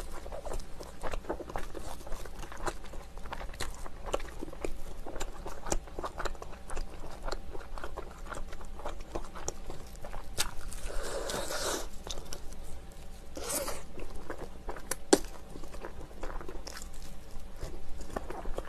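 Crunching and chewing of sauce-glazed fried chicken as it is bitten from the bone, many small crunches throughout. A longer burst of crunching comes a little past halfway, with another shortly after.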